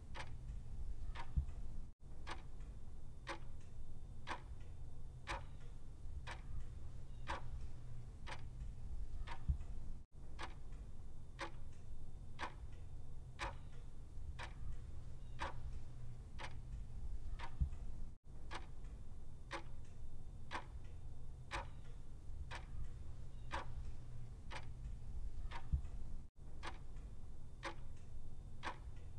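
Clock ticking steadily, about two ticks a second in a tick-tock pattern, over a low steady hum. The sound drops out for an instant about every eight seconds.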